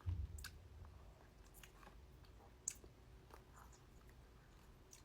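Faint wet chewing and mouth clicks from someone eating soft meat, with a short low thump just after the start and one sharper click about two and a half seconds in.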